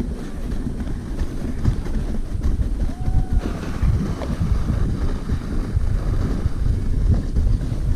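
Sled runners sliding fast over packed snow, a rough rumbling scrape with many small bumps, mixed with wind buffeting the camera microphone.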